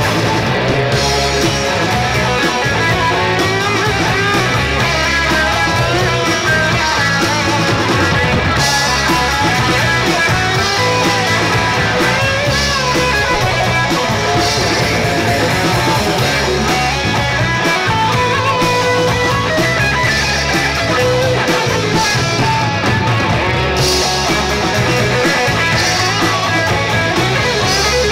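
Live rock band playing: electric guitars, acoustic guitar, bass guitar and drum kit with a steady beat, loud and unbroken.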